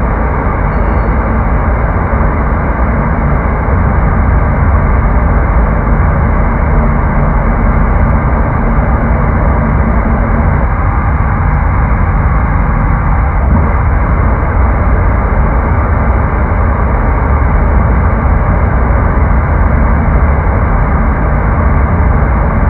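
Experimental drone music: a loud, dense low drone that holds steady, with little above the middle range.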